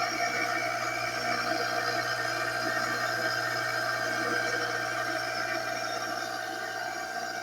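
Kawamoto N3-156SH well pump's electric motor running steadily: a constant hum with a higher whine over it, the abnormal motor noise of a pump that had to be freed by turning its seized shaft.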